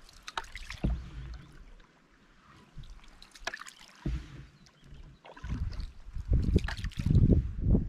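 Canoe paddle strokes: the blade dipping and splashing, with water dripping and trickling off it. From about halfway through, gusts of wind rumble on the microphone and become the loudest sound.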